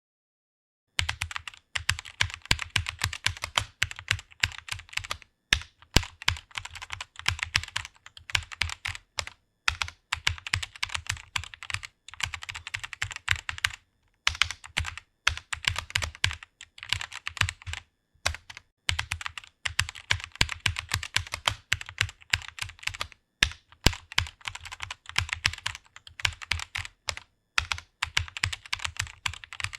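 Rapid typing on a computer keyboard: a dense run of keystroke clicks that begins about a second in and runs in bursts separated by brief pauses of under a second.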